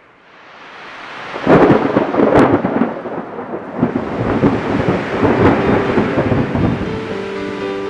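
A thunderstorm-like rumble with sharp cracks opens a rock track. It swells from near nothing, turns suddenly loud about one and a half seconds in and keeps rolling. Plucked guitar notes come in near the end.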